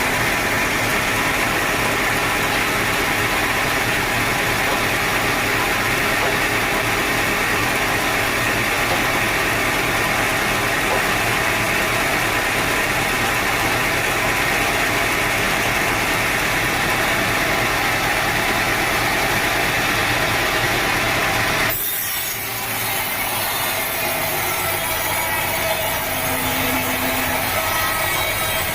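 A sawmill saw cutting lengthwise through a teak log, giving a loud, steady cutting noise. About three-quarters of the way through, the sound changes abruptly to a thinner, higher hiss with less low rumble.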